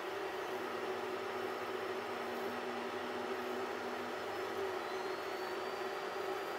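Geeetech Mizar S FDM 3D printer running a print at its maximum good material throughput: a steady fan hum with stepper motor tones that shift as the print head moves, including a faint high whine that rises slightly about five seconds in.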